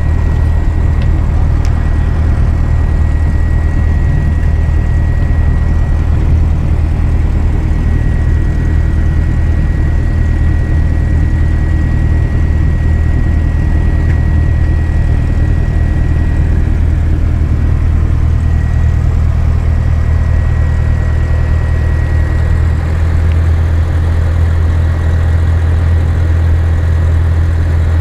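Socata TB-9's four-cylinder Lycoming engine and propeller running steadily at low taxi power, heard from inside the cabin. A thin steady high tone runs alongside until near the end.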